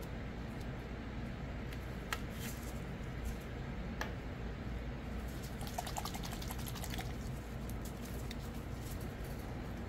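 Faint clicks and light taps of plastic mixing cups and a small dropper bottle being handled, with a cluster of small ticks a little past the middle, over a steady background hiss.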